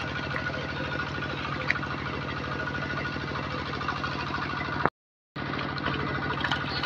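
Small engine running steadily, driving the pump that drains the pond for fish. It drops out completely for about half a second near the end.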